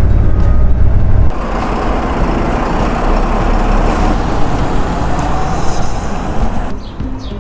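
City bus on the move: a deep engine rumble, which drops away about a second in to a steady rushing noise, with a further change near the end.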